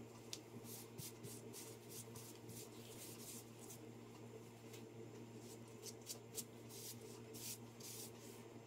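Faint cloth strokes rubbing along a wooden walking stick, irregular swipes about one or two a second, wiping finish onto the shaft. A steady low hum runs underneath.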